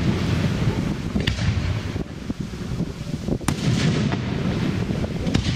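Aerial firework shells bursting overhead: three sharp bangs about two seconds apart, each followed by a rolling echo.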